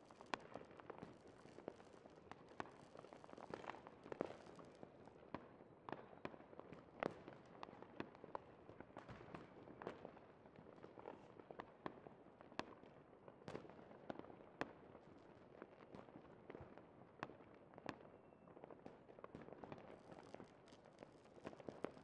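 Fireworks display: sharp pops and bangs, irregularly spaced at roughly one a second, over a continuous faint crackle. The sound is fairly faint overall.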